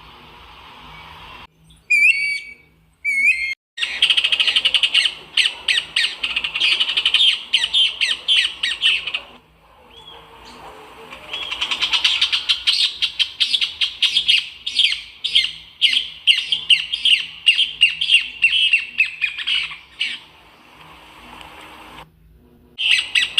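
Songbirds singing: two short, hooked whistled notes about two seconds in, then long runs of fast, dense chattering song. The song breaks off for a moment around ten seconds in and drops out abruptly a few times.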